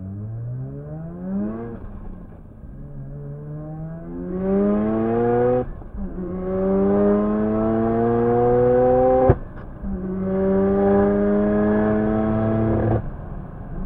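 Mazda RX-7 FD3S engine pulling hard at full throttle through the gears, the revs climbing steadily in each gear. Upshifts about two, six and nine and a half seconds in, with a sharp crack at the last one, and the throttle closing about thirteen seconds in.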